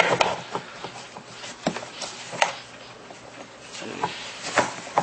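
Hard plastic parts of a Power Wheels ride-on toy knocking and clicking together as a rear wheel is fitted onto its axle, in a few separate knocks.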